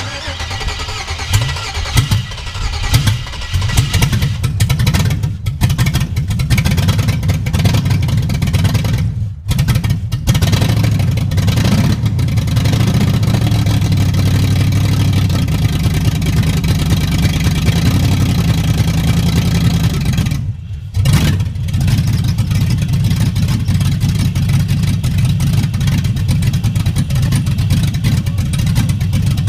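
Chevy 5.3 LM7 V8 in an LS-swapped Dodge Dakota, on a freshly installed Holley Terminator X, catching and running roughly, its revs rising and falling unevenly, with two brief drops in the sound. It runs terribly because the idle screw on the throttle body still needs adjusting.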